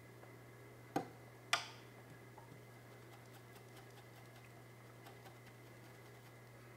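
Two sharp clicks about half a second apart, the second louder, then a few faint light ticks, as a paintbrush works oil paint on a wooden palette. A low steady hum runs underneath.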